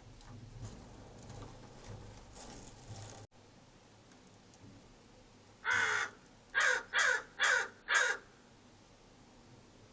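American crow cawing five times: one longer caw, then four shorter caws in quick succession.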